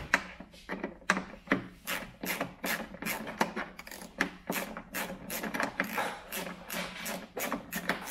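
Socket ratchet clicking in a steady rhythm, about two to three clicks a second, as a coarse-threaded bolt is wound out of a plastic headlamp housing.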